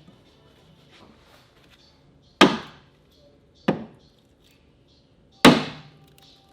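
Three sharp metal knocks, a second or two apart, the first and last loudest, each fading quickly. They come from striking the parts of a Subaru Impreza's front suspension (knuckle, hub and CV axle) to knock them free.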